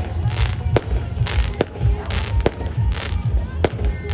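Aerial fireworks going off: sharp bangs roughly once a second, with crackling bursts between them.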